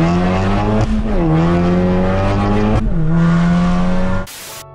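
Volkswagen Golf 7R's tuned turbocharged four-cylinder engine with a full IPE exhaust, heard from inside the cabin under hard acceleration. The engine note rises and drops sharply twice, about a second and about three seconds in, as the manual gearbox shifts up. It cuts off near the end.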